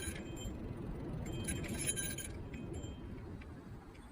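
Niu KQi3 Pro electric kick scooter riding along, with a low rumble of tyres and wind. A metallic jingling rattle comes at the very start and again for about a second, about a second and a half in.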